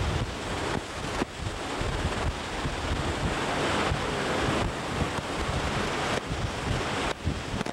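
Hurricane wind roaring and buffeting the microphone, over heavy storm surf breaking and churning.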